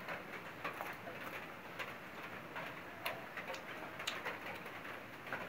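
A person eating by hand from a steel plate: faint, irregular clicks and crunches of chewing and of fingers on the plate, several in a few seconds.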